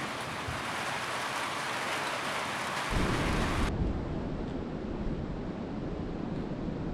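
Steady hiss of heavy rain. About three seconds in it switches abruptly to a different recording with a deep rumble under duller, less hissy rain.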